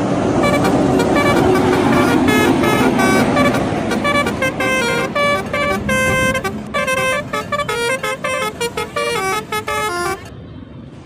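Indonesian bus telolet horn, a multi-tone air horn, playing a fast melody of short stepped notes that stops about ten seconds in, over bus engine and road noise.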